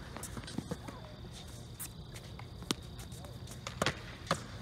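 Tennis rally on a hard court: a tennis ball struck by racquets and bouncing, heard as a string of sharp pops. The loudest is a close racquet hit near the end, followed by another pop.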